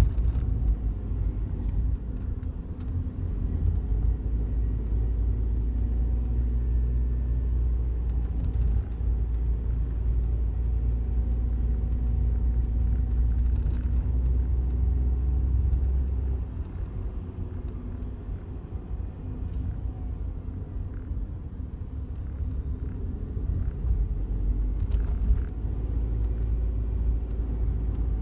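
Steady low road and engine rumble inside the cabin of a Daihatsu Wake kei car on the move, easing off somewhat about two-thirds of the way through. A few faint ticks come through now and then: the buzzing rattle from the dashboard in front of the passenger seat that appeared a month after delivery.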